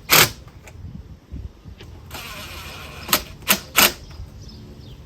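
Sharp clicks and knocks from hand tools working the stainless band clamps on the intake's silicone boot: one near the start, then three in quick succession about three seconds in.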